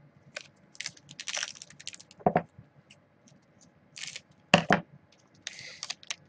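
Hockey trading cards and foil card packs being handled at a table: a run of short clicks and crinkly rustles as cards are flicked and wrappers crushed, with two sharper knocks, about two seconds and about four and a half seconds in, as cards are tapped down.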